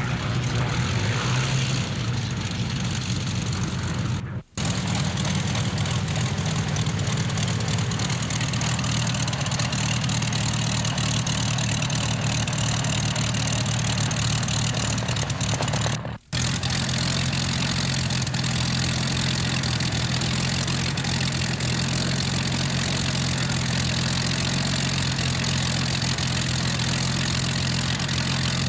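Hawker Hurricane's Rolls-Royce Merlin V12 engine idling steadily on the ground. The sound cuts out briefly twice.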